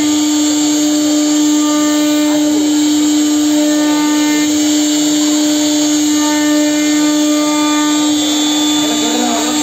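CNC router spindle running at speed while its bit carves a relief pattern into a wooden door panel: a steady high whine, with fainter higher tones coming and going as the head moves.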